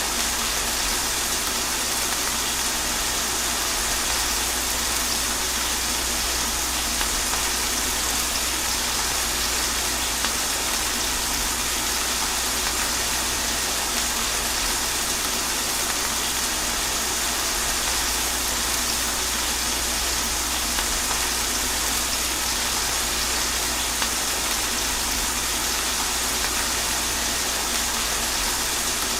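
Steady rain with running water, an even hiss without breaks and a low rumble underneath.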